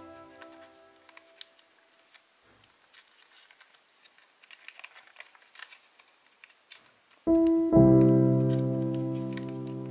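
Faint crinkles and taps of origami paper being folded and pressed by hand. Background music comes back in about seven seconds in with a loud chord that rings and slowly fades, the loudest sound here.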